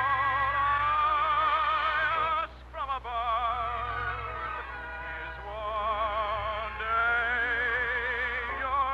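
Operetta singing with the orchestra: a voice holding long notes with a wide, even vibrato, pausing for breath about two and a half seconds in. The sound is thin and band-limited, as on an old radio transcription.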